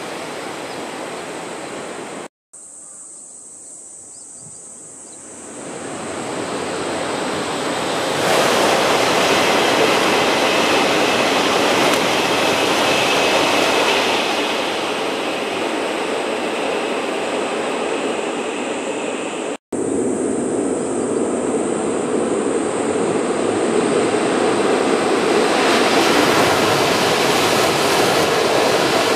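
Wind on the microphone, then the rushing noise of high-speed Tohoku Shinkansen trains passing, building from about six seconds in and staying loud. The sound cuts out abruptly twice.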